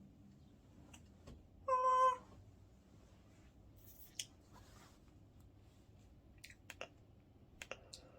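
A single short, high-pitched cry with a steady pitch about two seconds in, followed later by a few faint clicks and taps.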